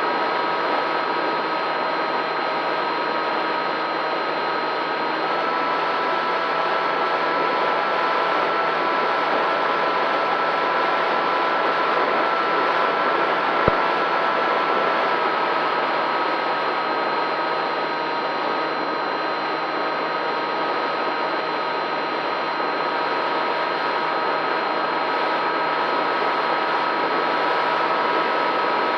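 FPV drone's electric motors and propellers running at a fairly constant throttle: a steady whine of several held tones over a hiss of prop wash, with a single sharp click about halfway through.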